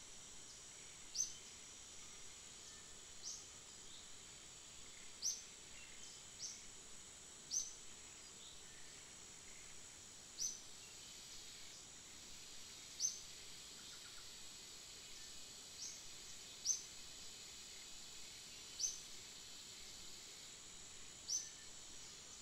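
Quiet outdoor ambience: a steady high-pitched insect drone, with a short high chirp repeating about every two seconds, some ten times in all.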